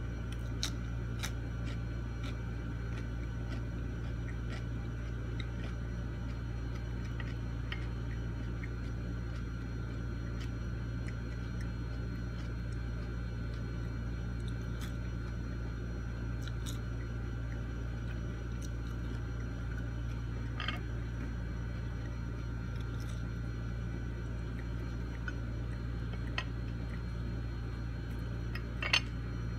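Quiet eating sounds: faint chewing and mouth clicks scattered over a steady low hum, with one sharper click near the end.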